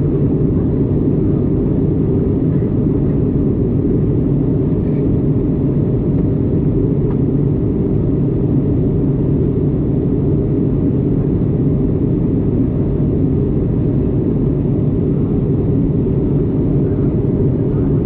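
Steady, even cabin noise of a jet airliner in flight: engine and airflow rumble, mostly low in pitch, heard from a passenger seat inside the cabin.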